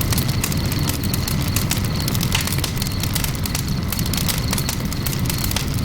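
Campfire crackling: a steady low rumble with scattered sharp crackles.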